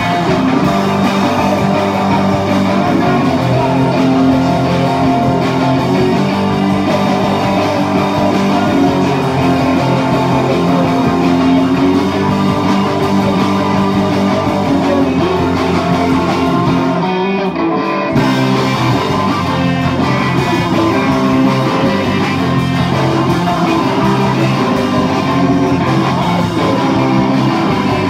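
Live rock band playing loud and continuous, led by electric guitar. About two-thirds of the way through, the music thins out for about a second before coming back in full.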